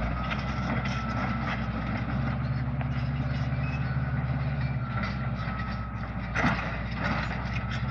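A heavy vehicle engine running steadily at a constant speed with a low hum, and a brief clatter about six and a half seconds in.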